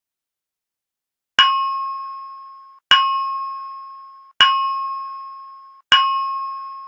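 Fire alarm voice-evacuation system chiming its alert tone: four identical ding strikes about a second and a half apart, each a bell-like tone that rings out and fades. The fourth is still ringing near the end.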